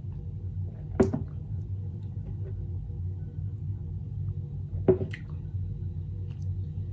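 Drinking from plastic shaker cups: two short, sharp gulps, about a second in and just before five seconds in, over a steady low hum.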